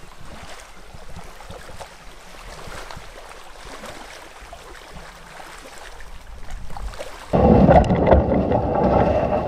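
Faint rustle with a few scattered small crackles. About seven seconds in, it switches suddenly to loud wind buffeting the microphone.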